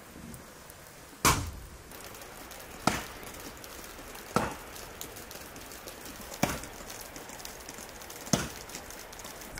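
Five sharp chopping blows, spaced about one and a half to two seconds apart, over a light, steady patter of small ticks.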